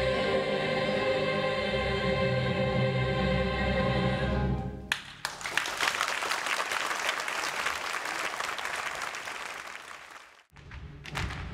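Youth chorus and small orchestra holding a final chord, which cuts off sharply about five seconds in. Audience applause follows and fades away near the end.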